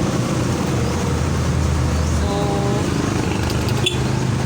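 Yamaha Mio Sporty scooter's small single-cylinder four-stroke engine idling steadily. A brief pitched tone sounds about two seconds in, and a few light clicks come near the end.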